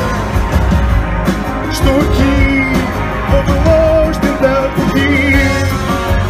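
Live pop-rock band: strummed amplified acoustic guitar and electric bass with a steady beat, under a male voice singing drawn-out notes.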